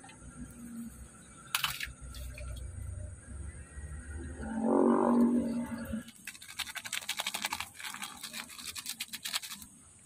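A plastic-foil seasoning sachet crinkling in rapid crackles as it is handled and torn open, through the second half. Just before that comes a pitched, animal-like call about a second long, the loudest sound.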